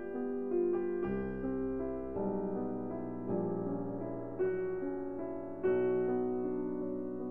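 Background piano music: slow, gentle chords, with a new chord struck about once a second.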